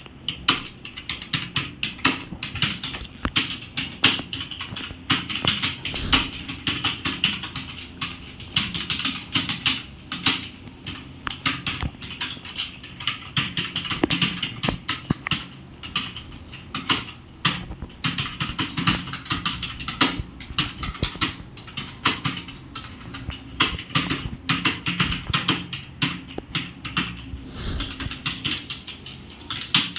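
Fast continuous typing on a computer keyboard, keys clicking several times a second in an uneven run.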